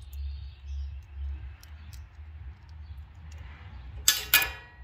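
Small parts of an electrical plug and its terminal screws handled in the fingers: faint clicks, then two sharp metallic clinks about a quarter second apart near the end. A low steady hum runs underneath.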